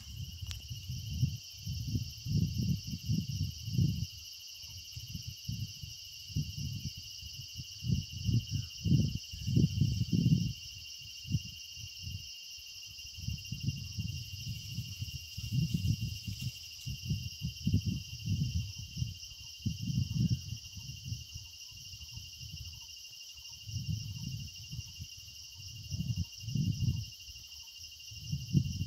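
Steady high-pitched insect chorus under loud, irregular low rumbles that come and go every second or two.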